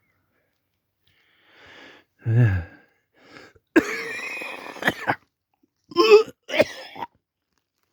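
A man with a head cold gagging and coughing: a long, strained retching sound about four seconds in, then two short chesty coughs near the end.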